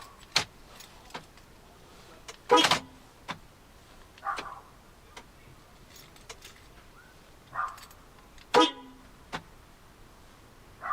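Car doors of a Land Rover Discovery 2 being worked and shut: two loud, short bangs about six seconds apart, with lighter clicks and knocks between them.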